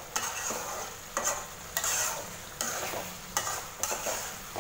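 Thick chicken masala gravy sizzling in an aluminium pot on a high flame while it is stirred, with a short scrape of the stirring utensil against the pot about every three-quarters of a second over a steady frying hiss. The gravy is being cooked down uncovered so that the oil separates.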